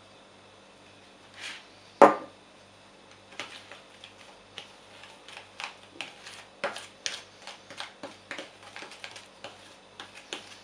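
A spoon knocks once, sharply, against a dish about two seconds in. From a second later it clinks and scrapes irregularly, a few times a second, as it stirs flour and olive oil together.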